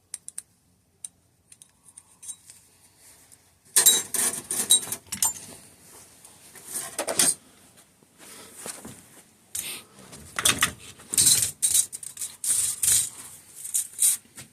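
Small metal parts of a disassembled hydraulic disc brake clinking and clattering as they are handled and sorted on a workbench: a few light clicks, then from about four seconds in a run of jangling clatter in repeated bursts.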